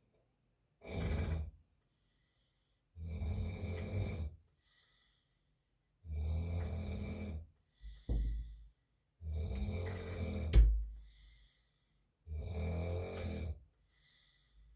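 A sleeping man snoring: about five long snores, roughly one every three seconds, with silent pauses between them and a short snort just after the third. A sharp click about ten seconds in, in the middle of one snore, is the loudest sound.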